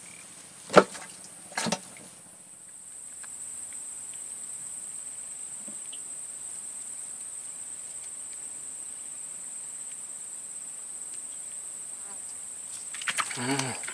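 Insects in the swamp vegetation keep up a steady high-pitched drone. About a second in there are two sharp knocks.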